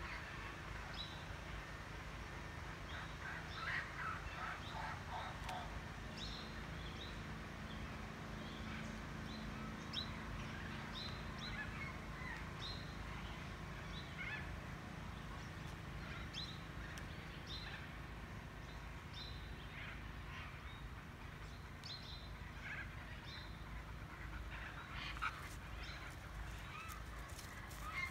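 Birds calling outdoors: many short, high chirps scattered throughout, over a steady low rumble.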